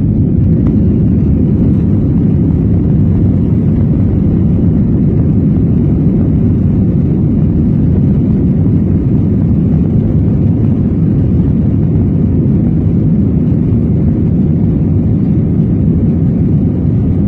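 Jet airliner's engine and airflow noise heard inside the passenger cabin: a loud, steady, deep rumble.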